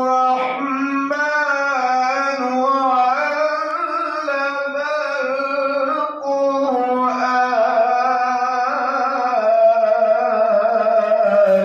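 A man's voice reciting the Quran in the melodic, unaccompanied qirat style, drawing out long held notes with wavering ornaments. There is a brief breath break about six seconds in, and the phrase ends near the close.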